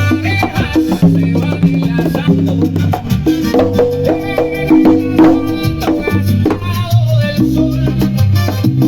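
Salsa music with congas and other hand percussion driving a steady rhythm over a bass line and held pitched notes.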